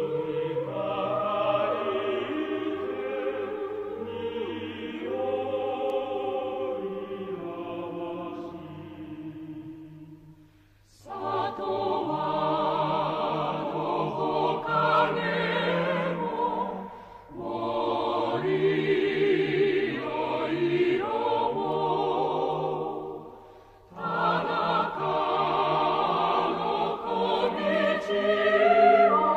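Mixed choir singing a Japanese song in long phrases, breaking off briefly between phrases about ten, seventeen and twenty-four seconds in.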